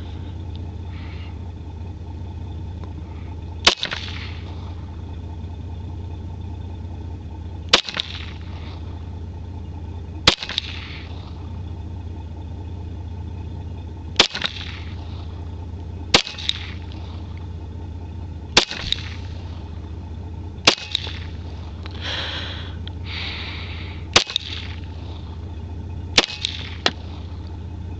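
Handgun shots at target practice: nine single shots fired slowly, two to four seconds apart, each with a short echo, over a steady low hum.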